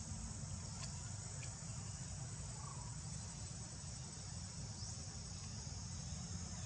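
Steady high-pitched insect chorus over a low steady rumble, with a brief rising chirp about five seconds in.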